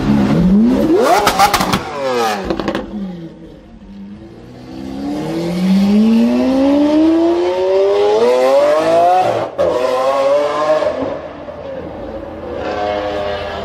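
Lamborghini Aventador's V12 revving hard as it pulls away, the pitch climbing sharply, then a quick run of sharp pops and crackles about a second in. Later it makes a long pull through a gear, the pitch rising steadily for several seconds until a sudden break, then climbing again.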